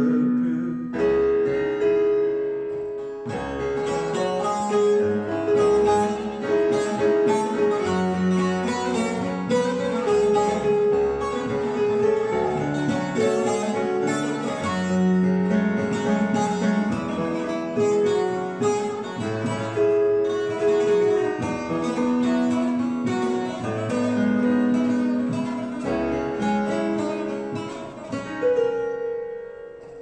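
Bağlama (Turkish long-necked saz) played with a plectrum: a fast instrumental interlude of a Turkish folk song, rapid bright plucked notes carrying the melody, thinning out near the end.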